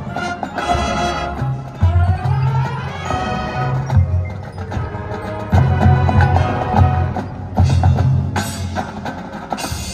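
High school marching band playing, with strong repeated bass notes under the melody.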